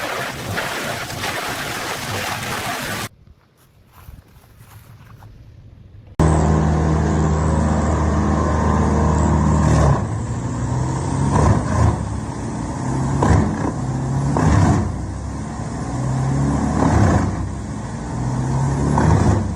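Large wood chipper running under load: a heavy engine with repeated swells and sharp cracks as wood goes through. The sound cuts off abruptly about three seconds in, stays quieter, then comes back suddenly about six seconds in.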